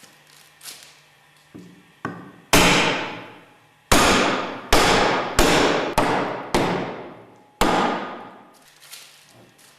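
Mallet blows driving the closing chamber bottom of a Westfalia separator bowl down into the annular piston: a few light taps, then seven strong strikes, each ringing out for about a second.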